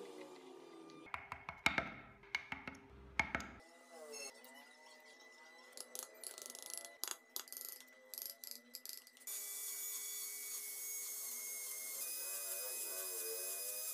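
Small wooden wheels clicking and knocking against a wooden workbench, then light clicks of a hand carving gouge cutting into wood. About nine seconds in, a small electric rotary carving tool starts running with a steady whine.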